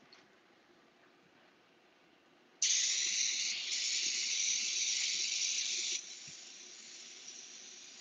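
Iwata Eclipse airbrush spraying paint, a steady high hiss of air that starts abruptly about two and a half seconds in and drops to a softer hiss about three seconds later.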